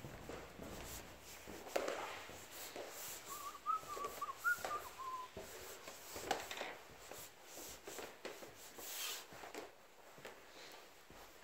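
A person whistling a few wavering notes for about two seconds, a few seconds in. Scattered soft knocks and footsteps are heard around it.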